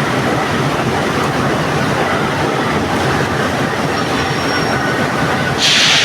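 Factory machinery running with a loud, steady rumble and clatter. A short burst of hiss comes near the end.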